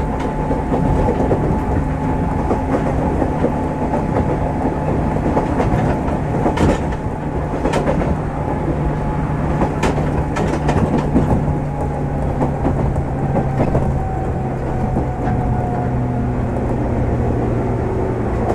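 Running noise of a JR 103-series electric train heard from inside the car: a steady rumble with a motor and gear whine, and wheels clicking over rail joints several times in the middle. The whine eases slowly lower in pitch in the second half.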